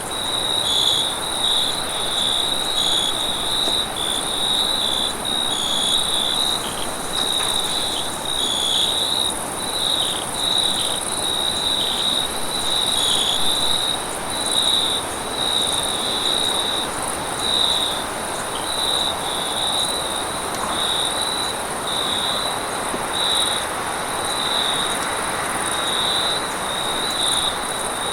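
Night-time insect chorus: crickets chirping in short repeated pulses over a steady, high-pitched insect drone, with a soft background hiss.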